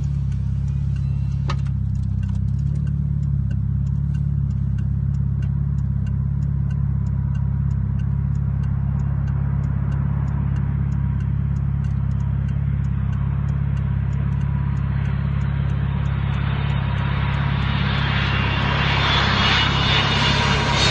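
Jet engines of an Airbus A380 on low approach with one engine blown out, growing steadily louder as it nears: a rising hiss with a faint steady whine, loudest near the end. Under it runs a car's steady low rumble, heard inside the cabin.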